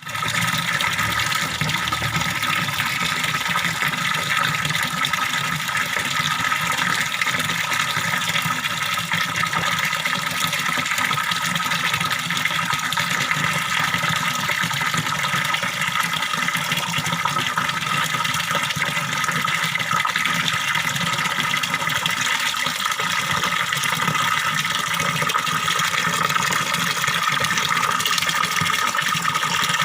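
Small pond waterfall, water splashing and gurgling steadily into the pond.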